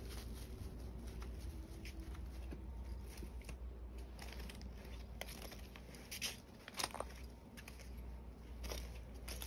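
Footsteps crunching and rustling on dry fallen leaves and grit: a run of irregular crackles with two louder crunches about six and seven seconds in, over a low rumble.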